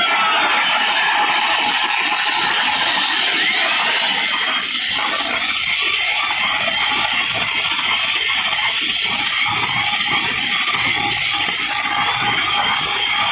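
Stacked DJ speaker cabinets blasting at full volume, picked up as a loud, harsh, distorted roar with no clear tune, and a rising whine about four seconds in.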